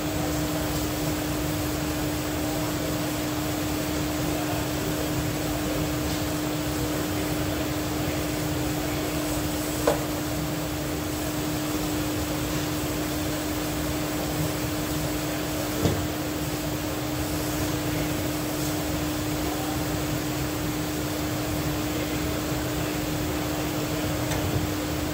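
40-horsepower DC motor running steadily on its test run after repair: a constant hum with one fixed tone over an even rush of noise. Two light clicks, about ten and sixteen seconds in.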